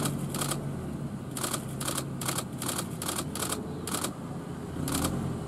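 Camera shutters clicking in short, irregular shots, about two a second, over the low steady hum of an idling vehicle engine.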